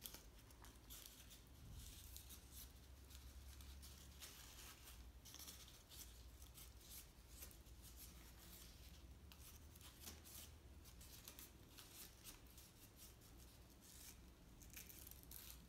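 Faint, irregular rustling and crinkling of crepe paper as a strip is wound by hand around a lollipop stick.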